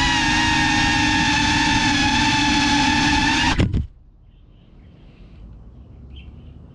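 Cinewhoop FPV drone's motors and propellers whining steadily in low flight, then cutting off abruptly about three and a half seconds in as it lands on the grass. After the cutoff there is only a faint background with soft high chirps.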